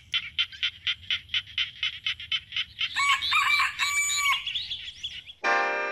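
A rapid run of short bird calls, about eight a second, then a rooster crowing once about three seconds in. Near the end, khaen mouth-organ music starts with a sustained reedy chord.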